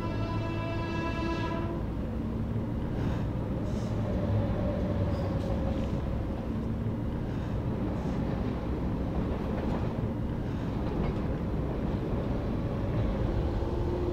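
A train horn sounds once for about two seconds, then a passenger train rumbles and rattles steadily past.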